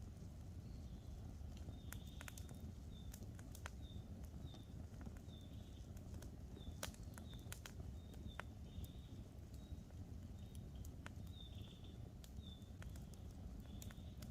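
Campfire crackling, with scattered sharp pops of burning wood over a low steady rush. A small bird repeats a short high call roughly once or twice a second throughout.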